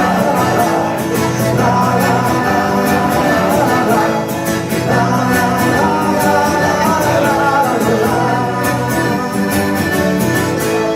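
Live band playing a song with guitar and singing, steady and loud throughout.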